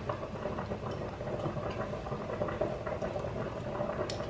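A pot of callaloo greens and aubergine boiling on the stove: a steady bubbling.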